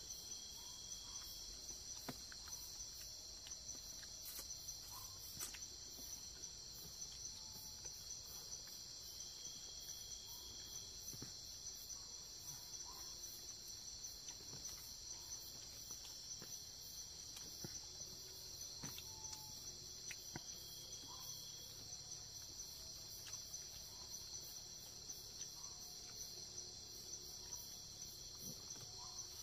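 Steady chorus of crickets and other forest insects, a continuous high-pitched buzz, with faint scattered clicks and taps.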